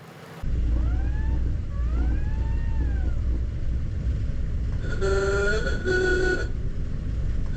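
1936 Ford's engine running with a steady low rumble. About a second in, the wolf whistle gives its faint two-part call, a short rising note then a longer note that rises and falls. About five seconds in, the ahooga horn sounds one two-part honk, a higher note dropping to a slightly lower one, the loudest sound here.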